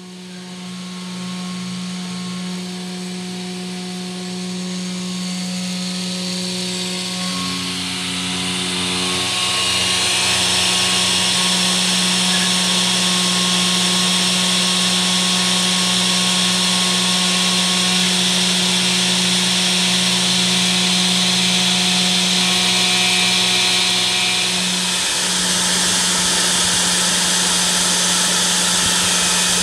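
CNC router spindle milling a copper-clad textolite circuit board with a fine engraving bit: a steady motor hum under a high cutting hiss. It grows louder over roughly the first ten seconds, then holds steady.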